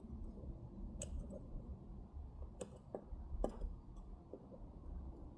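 Faint, sparse clicks of small watchmaking hand tools against a pocket-watch movement during assembly, a handful of them over low room hum.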